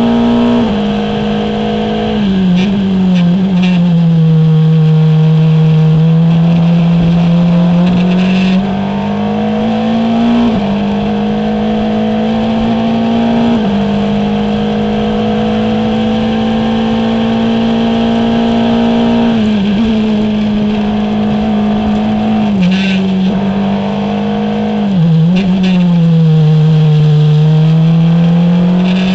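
Formula Renault 2.0 race car's four-cylinder engine heard from onboard at high revs, its pitch climbing slowly on the straights and stepping abruptly with gear changes. Twice the revs fall away and climb back, as for a slower corner. A few brief clicks are heard on top.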